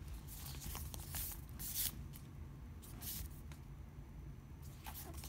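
A hardcover book sliding out of a thin cardboard case and being handled: a few short, soft rustles and scrapes of cardboard and paper.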